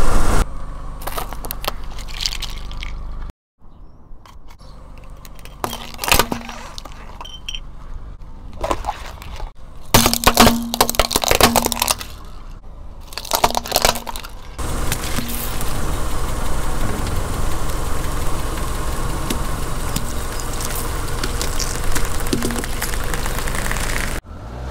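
A car tyre rolling over and crushing small objects on pavement: hard candy shells and plastic toys cracking and crunching, in a series of short clips. Several sharp cracks stand out around the middle, with a steadier rolling noise through the later part.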